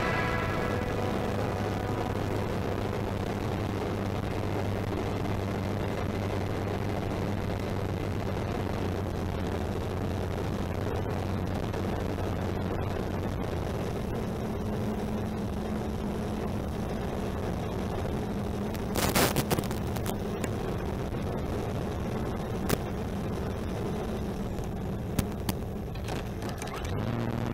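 Brushless electric motor and propeller of a radio-controlled T-28 Trojan model plane droning steadily under a rush of wind noise. Around midway the low hum gives way to a higher one as the plane comes in on final, and about two-thirds through a cluster of knocks sounds as the landing gear touches down, with a few single clicks after it.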